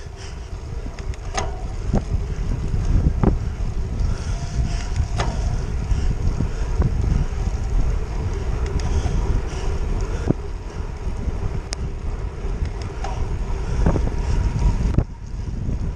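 Wind buffeting a handlebar-mounted action camera on a road bike riding in the rain, a steady low rumble with tyre noise from the wet road. Scattered sharp clicks and knocks come from the bike over the road surface. The wind eases briefly near the end.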